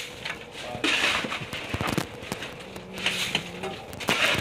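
Metal shovel scooping crushed ice and tossing it over the catch in a fishing boat's hold, icing the fish to keep them from spoiling: three or four gritty crunching, scraping swishes about a second apart, over a faint steady hum.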